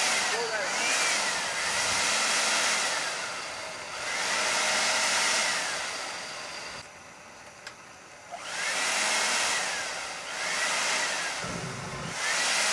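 Homemade propane tin-can turbojet being spun up in repeated rushes of air, each with a whine that rises and then falls away. About halfway there is a short lull with two clicks.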